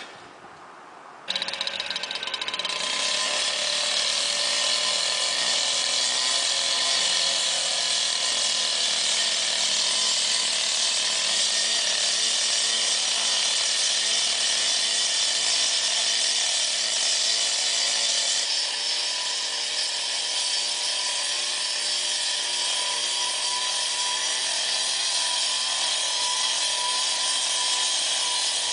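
Gas-powered cut-off saw running at high revs with its blade grinding through concrete: a loud, steady whine over a harsh hiss that cuts in abruptly about a second in.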